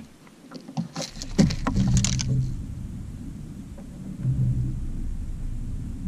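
A freshly landed bass flopping on a boat deck: a quick run of knocks and thumps with a wet patter over the first two seconds. After that, a steady low rumble.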